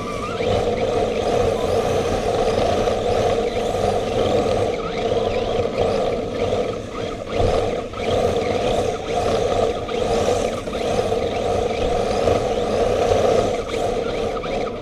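Radio-controlled HPI Racing drift car driving, heard from a camera mounted on the car itself. Its drivetrain and tyres make a steady rushing noise on the concrete floor that swells and dips with the throttle.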